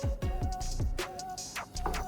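Background music with a steady beat: deep drum hits that drop in pitch, sharp percussion and a held synth tone.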